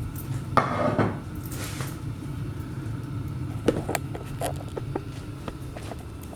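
Kitchen handling noises: a short scraping rustle about half a second in, then a few light knocks and clicks, over a steady low hum.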